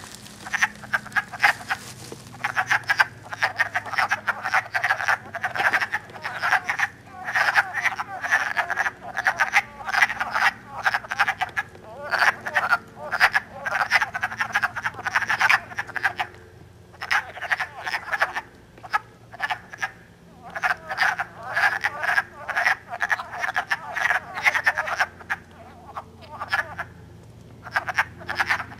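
Breeding chorus of wood frogs: many short calls overlapping in dense runs, with brief lulls about halfway through and again near the end.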